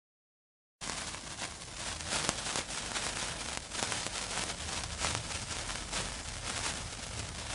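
Lit fuse burning, a steady fizzing hiss full of fast crackles, starting about a second in after silence.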